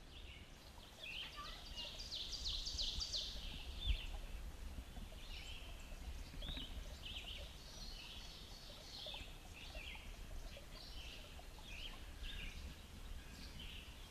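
Songbirds chirping and trilling, many short calls overlapping, over a steady low rumble. A single sharp knock comes about four seconds in.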